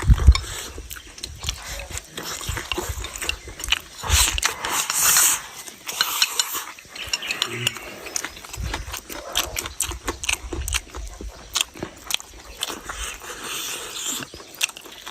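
Close-up eating sounds: chewing and smacking, with utensils clicking against a bowl or plate.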